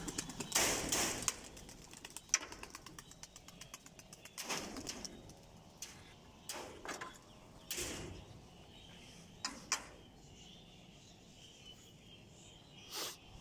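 Domestic pigeons' wings flapping as the birds take off from a rooftop loft: a quick run of wing claps in the first few seconds, then a few separate short flurries.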